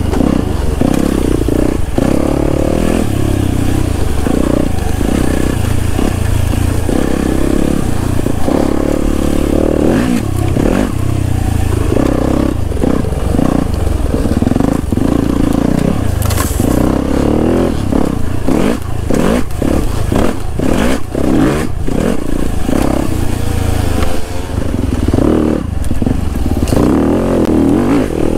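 Yamaha YZ250FX dirt bike's 250cc four-stroke single-cylinder engine, revving up and backing off over and over while it is ridden along a bumpy woods trail. Sharp clattering knocks come through, thickest around the middle of the stretch.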